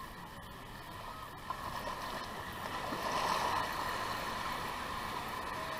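Small surf waves washing up the beach at the water's edge, a steady hiss that swells once in the middle.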